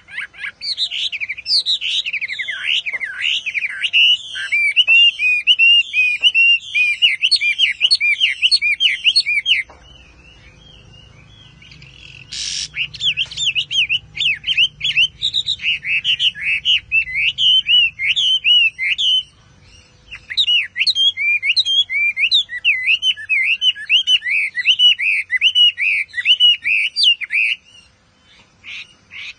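Chinese hwamei singing: long runs of rapid, varied whistled notes. The song breaks off for a few seconds about ten seconds in, and again briefly near twenty seconds. A single sharp click comes just before the song resumes, about twelve seconds in.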